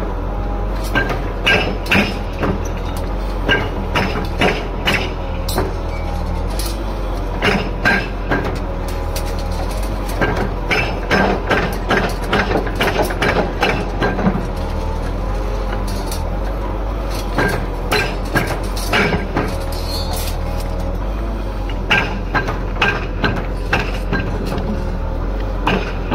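Heavy demolition machine's engine running steadily, with irregular clanks, knocks and crunches of building debris being crushed and moved.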